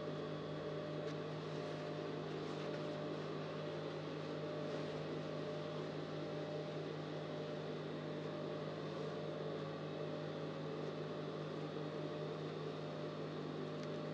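Steady electric hum of an industrial sewing machine's motor left running, with faint rustling of fabric being pinned.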